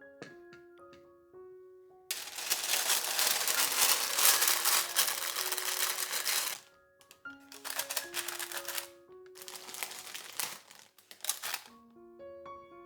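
Gentle piano background music with three spells of crisp, crackly handling noise over it; the first, starting about two seconds in, is the longest and loudest at around four seconds, followed by two shorter ones.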